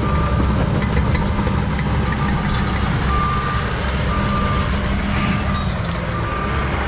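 A heavy machine's engine running steadily, with a backup alarm giving short single-pitch beeps at intervals, about once a second near the end.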